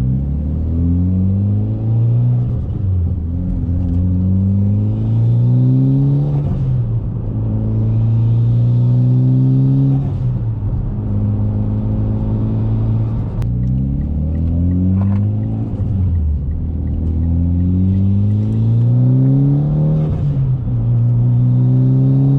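Mitsubishi Lancer Evolution X's turbocharged 2.0-litre four-cylinder engine, with an aftermarket cat-back exhaust, heard from inside the cabin while driving through the gears. The engine note climbs and drops sharply at each upshift several times, with a steadier stretch of cruising in the middle.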